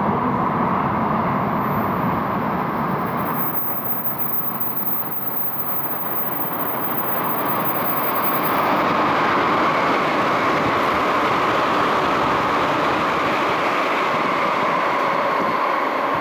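Tsukuba Express electric train running through an underground station at speed without stopping: a loud, steady running and wheel-on-rail noise echoing in the tunnel, swelling slightly as the train reaches the platform about halfway through.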